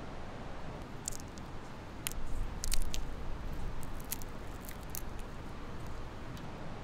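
Fingers cracking and peeling the brittle shell off a small nut: a scatter of short sharp cracks and crackles for a few seconds, the loudest about two and a half seconds in, over a steady hiss.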